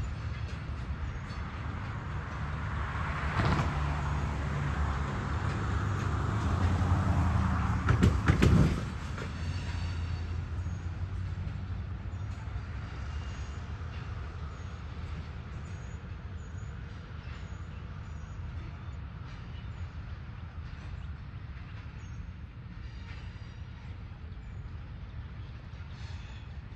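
Freight train of covered hopper cars rolling slowly on curved track, with the low steady rumble of diesel locomotives and wheels. It swells over the first several seconds, with a sharp knock about three and a half seconds in and a louder cluster of knocks about eight seconds in, then settles to a quieter, steady rumble.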